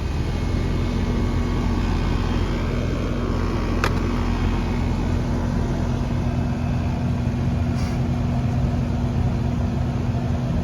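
Air-conditioner condenser running just after its compressor has started with the help of a hard-start kit: a steady electric hum from the compressor under the rushing air of the condenser fan. The compressor had been pulling locked-rotor current and cutting off, with a weak capacitor. One sharp click about four seconds in.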